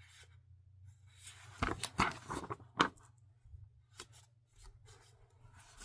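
Comic books being handled: rustling paper and light clicks and taps as issues are shifted, busiest in a short flurry near the middle.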